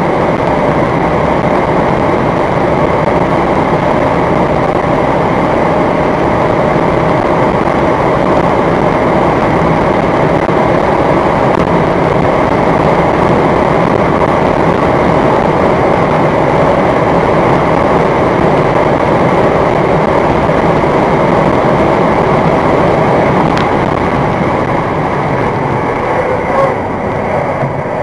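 Inside the cabin of a Skoda Octavia RS 4x4 with the four-cylinder 2.0 TDI diesel, running flat out in sixth gear at about 4,000 rpm and well over 200 km/h: a steady, loud mix of engine drone, wind and tyre noise. In the last few seconds it eases off as the car brakes hard from top speed.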